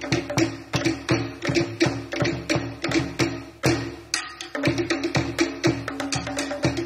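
Polynesian dance drumming: a fast, driving rhythm of sharp wooden drum strikes over a steady low tone, which thins briefly about four seconds in.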